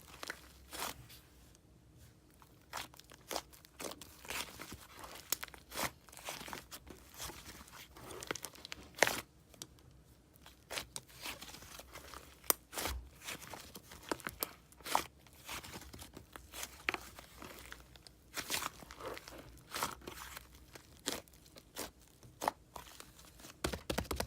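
White slime with crunchy candy and marshmallow toppings being squished and pressed, giving irregular crackling pops and crunches.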